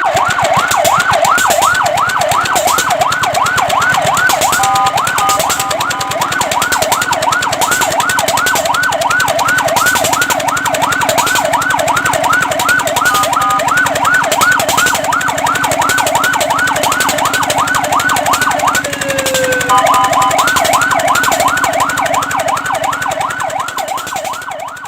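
Fire truck siren on a fast yelp, wailing up and down about five times a second. Three times it switches briefly to a steady two-note tone; about 19 s in it slides down in pitch and restarts, and it fades away near the end.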